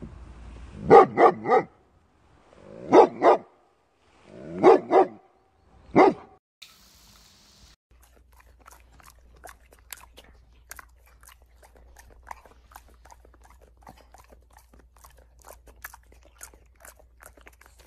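Doberman barking: eight loud, sharp barks in four quick bunches (three, two, two, then one) over the first six seconds. After a short hiss come faint, irregular crunching clicks.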